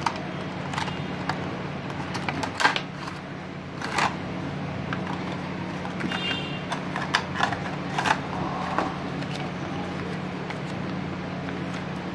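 Plastic packaging crinkling and rustling in the hands, with scattered sharp clicks and crackles, as a small earphone box and its plastic wrappers are opened. A steady low hum runs underneath.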